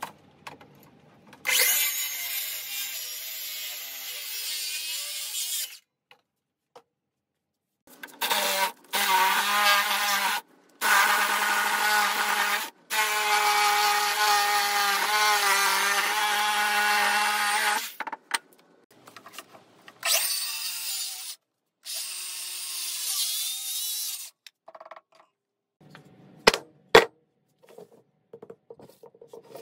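Power saws cutting through a thick wooden block, first a Ridgid circular saw and then a handheld electric saw finishing the cut, in several stretches of steady motor noise that start and stop abruptly. A few sharp knocks of wood blocks on a table near the end.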